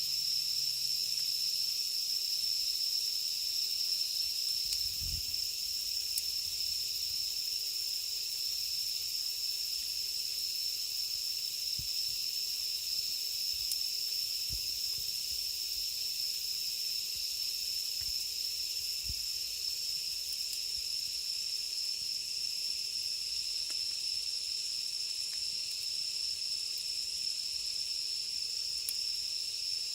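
Cicadas calling in a steady, high-pitched, unbroken drone, with a few faint soft knocks from a campfire's charcoal settling and falling.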